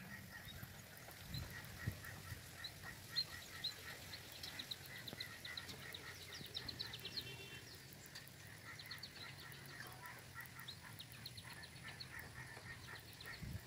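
Faint chorus of short animal calls repeated in quick series, with a couple of soft low bumps in the first two seconds.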